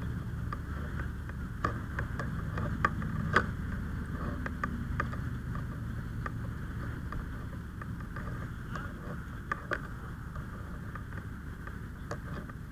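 A wood-frame house burning: irregular sharp crackles and pops over a steady low rumble.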